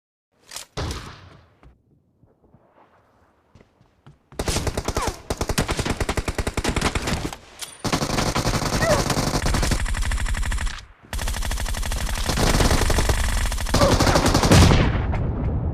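Video game automatic gunfire: a single shot, then from about four seconds in long stretches of rapid-fire shots from automatic weapons, broken by two short pauses and fading out near the end.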